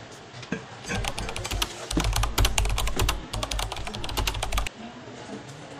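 Computer keyboard typing sound effect: a quick run of key clicks starting about a second in and lasting about four seconds, then cutting off abruptly, accompanying a caption being typed out on screen.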